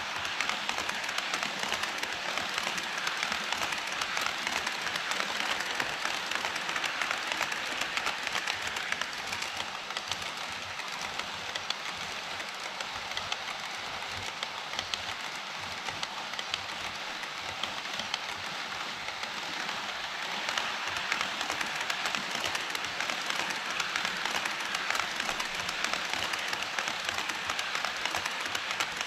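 HO-scale model train running on KATO Unitrack: a steady rattling hiss of metal wheels on the rails, dotted with fine clicks. It eases off somewhat in the middle and grows louder again in the last third.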